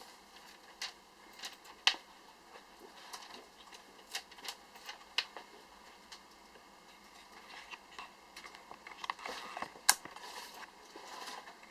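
Irregular sharp clicks and taps, a handful spread over several seconds, the loudest about two seconds in and near ten seconds in.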